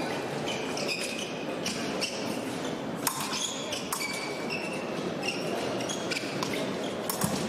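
Fencers' footwork squeaking and tapping on the piste, with sharp clinks of blades meeting, one about three seconds in and more near the end, over a steady hubbub of a large echoing hall.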